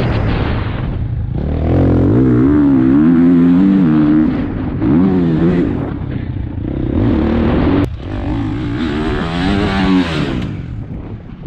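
Husqvarna FC450 four-stroke single-cylinder motocross engine being ridden hard, revs rising and falling as the throttle is worked over rough ground. The engine note wavers quickly up and down in the middle, drops briefly about eight seconds in, climbs again and eases off near the end.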